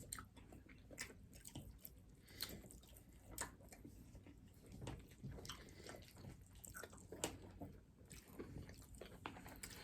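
Faint eating sounds: soft, wet chewing and mouth clicks, scattered irregularly.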